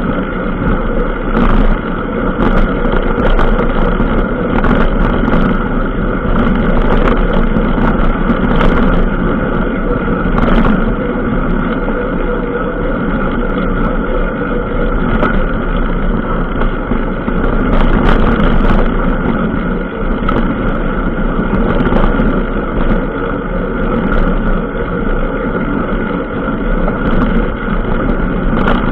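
Engine of a small off-road vehicle running at a steady speed along a rough dirt track, with scattered clicks and knocks.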